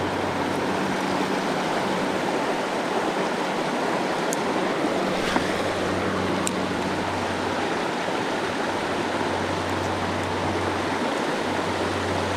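Whitetop Laurel Creek's flowing water: a steady, even rush of a mountain trout stream.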